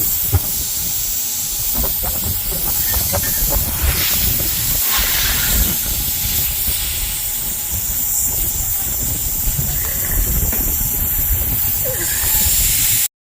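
Pressurised air hissing steadily out of a nail puncture in a truck tyre while a sticky plug is worked into the hole, with a few light knocks from the tool. The hiss cuts off suddenly near the end.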